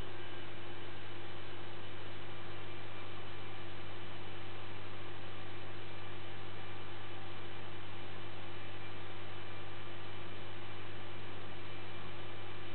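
Steady low electrical hum with an even hiss over it, unchanging throughout, with no distinct sounds.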